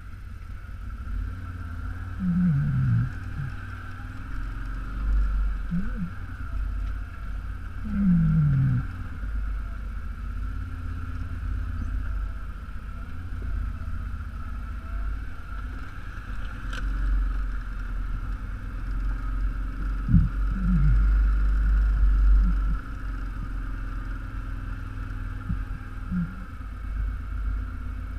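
ATV engine running on a rough trail, a steady low rumble with a constant higher whine. The pitch drops in a few short glides as the throttle eases, and there is one sharp knock about twenty seconds in.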